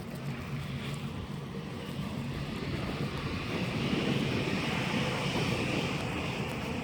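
A passing vehicle, its engine noise swelling about three seconds in and easing near the end, over a steady low hum.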